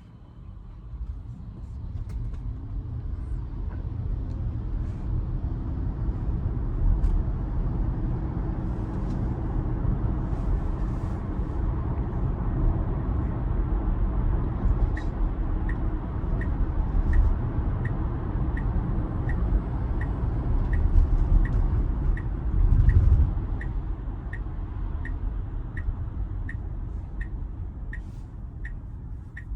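Road and tyre rumble inside a Tesla Model Y's cabin as the car picks up speed, swelling louder about three-quarters of the way through and easing near the end. From about halfway, the turn-signal indicator ticks steadily about twice a second.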